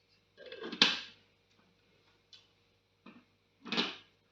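Hands handling and fitting the plastic jar, lid and vegetable blade of an electric vegetable chopper: two short clattering knocks, one about a second in with a sharp click and one near the end, with a few light ticks between. The motor is not running.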